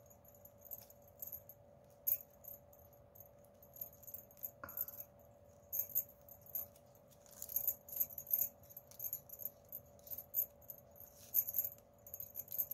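Flat plastic craft wire strips clicking, rustling and ticking against each other in short irregular bursts as they are handled and pulled into cross knots. A faint steady hum runs underneath, and there is one brief squeak about halfway through.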